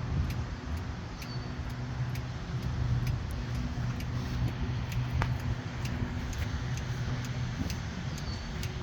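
Steady low engine hum with a light, regular ticking over it.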